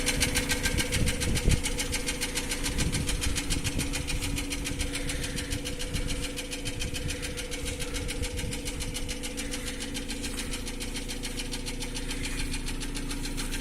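Nissan Almera N16 engine idling with a fast, even ticking: valve knock.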